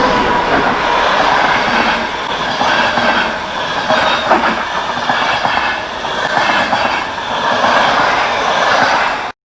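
Train rolling along the track, wheels clattering over rail joints with a faint wheel squeal, then cutting off suddenly near the end.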